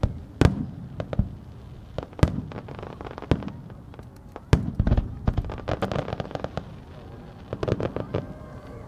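Aerial firework shells bursting: sharp booms every second or two, with rapid strings of crackling pops about halfway through and again near the end.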